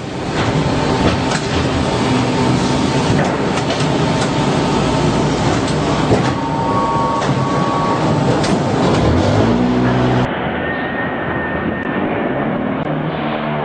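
Block-making plant machinery running: a dense, loud clatter full of knocks, with a steady whine. About ten seconds in the sound cuts to a quieter, duller machine hum with a thin high tone.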